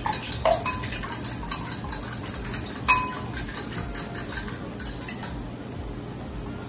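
Fork beating raw eggs in a bowl, a quick run of clinks as the fork strikes the bowl's sides. The whisking stops about five seconds in.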